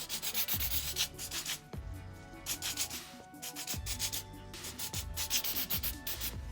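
Aerosol can of silicone spray hissing in repeated short bursts, under background music.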